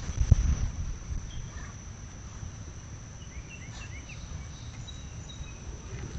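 A steady high-pitched insect trill, cricket-like, over a low rumble of wind on the microphone, with a sharp knock just after the start and a few short bird chirps midway.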